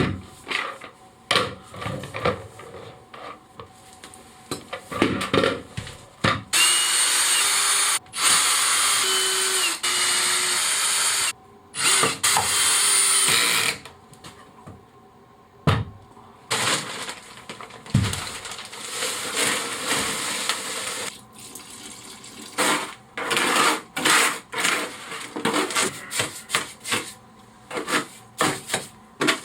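A handheld electric power tool running in bursts of a few seconds, stopping briefly about a third of the way in. Its runs are separated by scattered knocks and clatter of wood pieces being handled.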